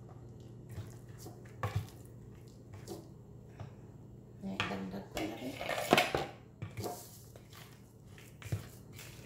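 Plastic spatula scraping and knocking against mixing bowls while cake batter is scraped out of one bowl into another and stirred by hand: scattered clicks and knocks, busiest and loudest around five to seven seconds in.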